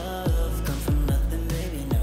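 Background pop music with a steady beat of deep bass drum hits that drop in pitch, under a melodic line.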